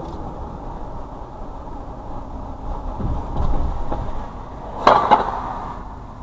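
Car road noise from a moving car, a steady low rumble of tyres and engine. Near the end, two sharp knocks about a quarter second apart stand out as the loudest sounds.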